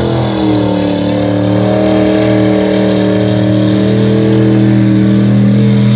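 Mud bog truck's engine running hard as its big tyres spin through the mud pit, slinging mud. The engine note holds steady, rising a little in pitch and easing again near the end.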